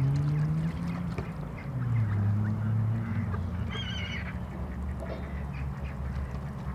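Waterfowl calling over a steady low hum, with a short wavering high call about four seconds in.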